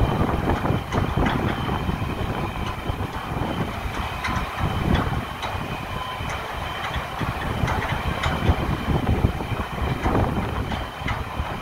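Steady rush of the Mohawk River flowing through the movable dam's gate bays, with gusty low rumbling and scattered sharp metallic clicks.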